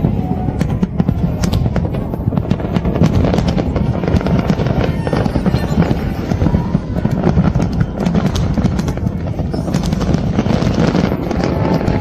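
Fireworks display going off continuously: a dense run of cracks and bangs over a deep rumble, with no pause.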